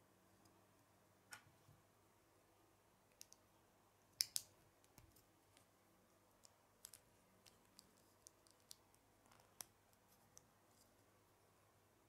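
Small plastic Lego pieces being handled and pressed together: scattered sharp clicks, the loudest a quick double click about four seconds in.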